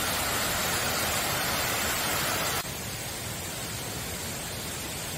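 Mountain stream rushing and splashing over rocks in a steady rush of water. About two and a half seconds in, it drops suddenly to a softer, steady hiss.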